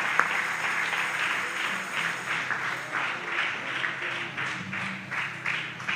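Congregation applauding, the clapping thinning out toward the end, over a few soft held notes from the band's instruments.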